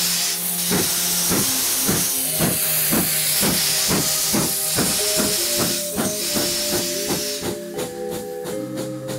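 Steam locomotive pulling away: steam hissing from the cylinders with a regular chuffing, about three beats a second, under background music.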